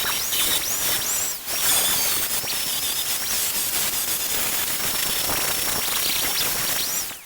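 Arc welding on a Vespa's pressed-steel body, a steady crackling sizzle that dips briefly about a second and a half in and cuts off at the end.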